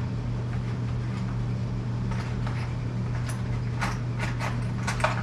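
A steady low hum with a few light clicks and clinks of small metal hardware being handled, mostly in the last couple of seconds.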